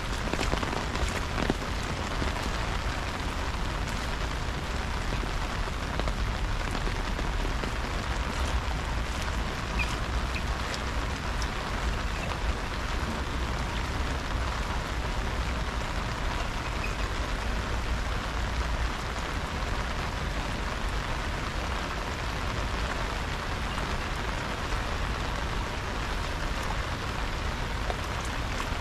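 Steady rain falling, an even hiss with a constant low rumble underneath and a few sharper drip ticks near the start.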